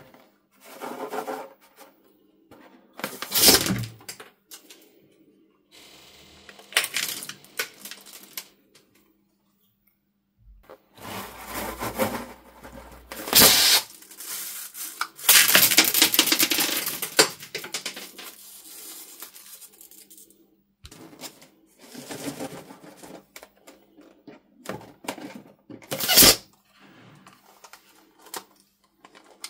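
Scissors snipping open bead-filled rubber balloons, and small plastic beads pouring out and clattering into a bowl of slime. The sound comes in irregular bursts, the longest about halfway through, with a few sharp snaps.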